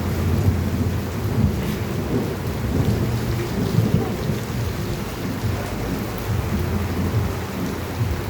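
Heavy rain falling on a city street, a steady wash of noise with a low rumble underneath.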